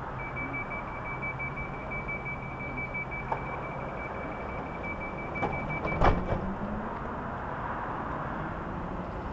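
Southern Class 377 Electrostar's door-closing warning, a rapid high beeping lasting about six seconds, ending as the sliding doors shut with a loud thump. The train's steady electrical hum runs underneath and changes pitch once the doors are shut.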